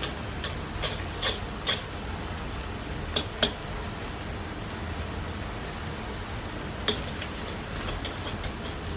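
Metal ladle stirring in a wok, knocking against the pan in several sharp clinks, the loudest about three and a half seconds in, over the steady rush of a gas wok burner.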